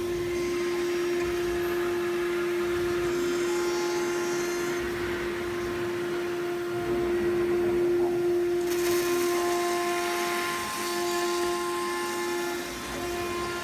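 CNC router spindle running at speed with a steady high-pitched whine. A hissing noise joins it about nine seconds in.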